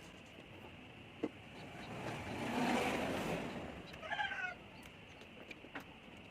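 A rushing noise swells and fades over about two seconds, followed by a short, falling cry, like an animal call.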